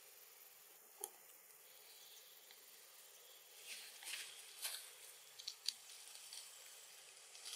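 Near silence: a faint steady hiss, with one small click about a second in and a few soft, scratchy rustles and ticks in the second half.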